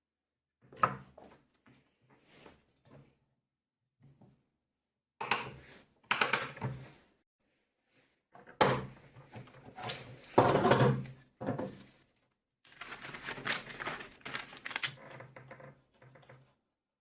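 Irregular knocks, clunks and scraping of parts being handled and worked by hand, with the loudest clatter about ten seconds in and a longer stretch of rubbing near the end.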